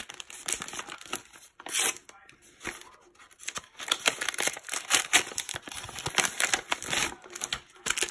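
Paper gift bag and plastic product packaging rustling and crinkling as they are handled and unpacked, in irregular bursts that grow busier about halfway through.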